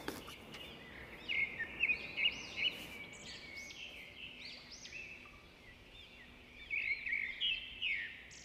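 Small songbirds chirping: quick, high, arching notes in two busy spells, about a second in and again near the end.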